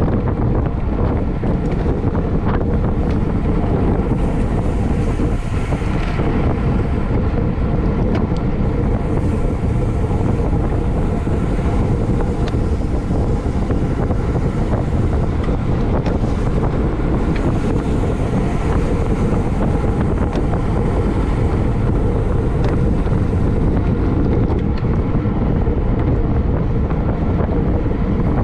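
Steady wind rushing over the microphone of a camera carried on a racing bicycle at speed, with a few faint clicks under it.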